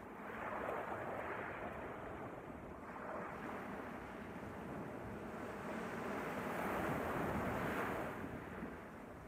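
Small sea waves washing up onto a sandy beach, a rushing surge about a second in and a louder one near the end.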